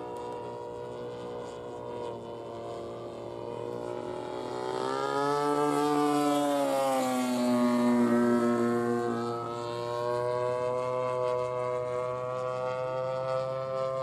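Gasoline engine of a radio-control aerobatic model airplane running in flight. About a third of the way in its note rises and grows louder as the plane passes close, then falls in pitch and settles to a steady drone.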